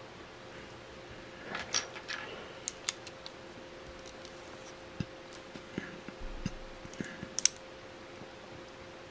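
Plastic building bricks being handled and pressed together: scattered small clicks and rattles, the sharpest about two seconds in and again about seven seconds in, over a faint steady hum.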